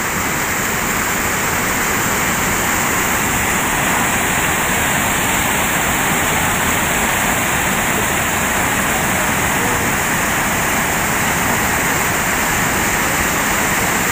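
Muddy river water rushing steadily over a low concrete weir, a loud, even roar of falling water with no let-up.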